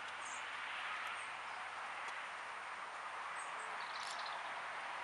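Steady outdoor background noise with a few faint, short, high bird chirps.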